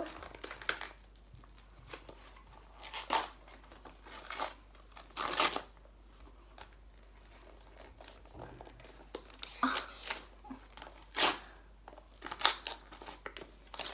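Gift wrapping paper being torn off a present: a series of short, sharp rips with paper crinkling in between.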